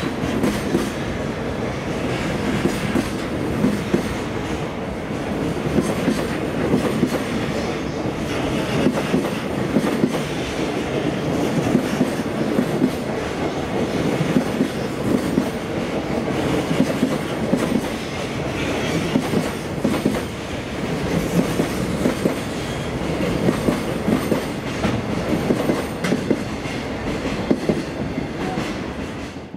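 Freight train of container flat wagons rolling past, its wheels clattering over rail joints in repeated clicks.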